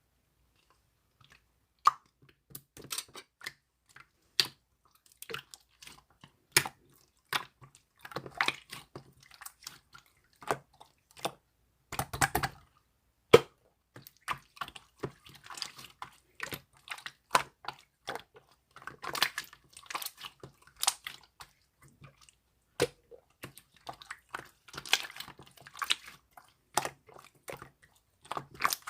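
Irregular close-up clicking and crackling: many sharp clicks and short crackly bursts at uneven intervals, beginning about two seconds in.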